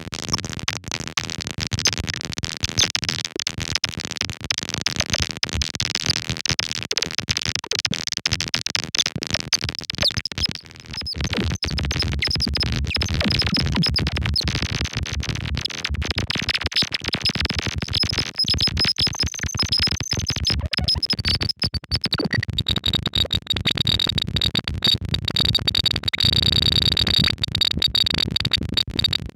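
Lorre-Mill Double Knot V2 synthesizer playing a dense, harsh, noisy texture with high whistling tones. About two-thirds of the way through it settles into a steady high tone over a low rumble.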